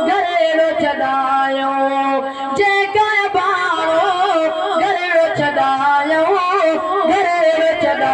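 A man singing a Sindhi molood (devotional naat) into a microphone, holding long notes and ornamenting them with quick wavering turns of pitch. A steady low drone note sounds under the voice at the start and again near the end.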